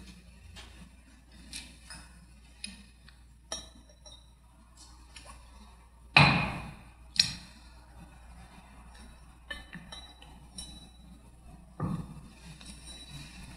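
Light clinks and taps of glass cruets and a chalice handled on an altar, some with a brief high ring, as the chalice is prepared with wine and water at the offertory. A couple of louder knocks come about six and seven seconds in.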